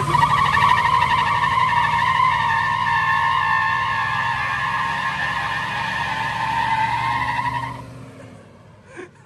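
Pickup truck doing a burnout: a single spinning tire squeals steadily over the running engine for about eight seconds, then stops.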